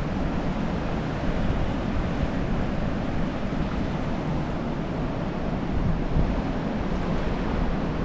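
Ocean surf, a steady wash of breaking waves, with wind on the microphone adding a low, uneven rumble.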